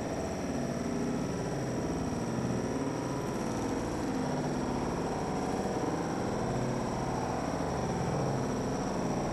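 Steady background hum and hiss with a faint, constant high-pitched whine and no distinct events.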